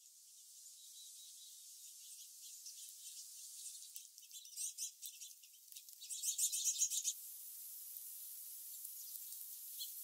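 Faint, high-pitched chirps and twitters of small birds, busiest between about four and seven seconds in, then giving way to a steady faint hiss.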